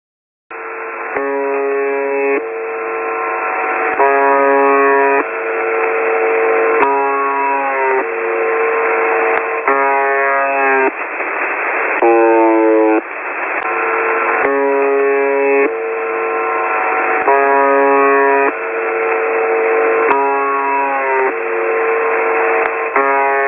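Emergency alert alarm: a slow series of held pitched tones, changing pitch about once a second, with a couple of sliding tones around the middle. It sounds thin and narrow, as if heard over a radio, with steady hiss behind it, and starts about half a second in.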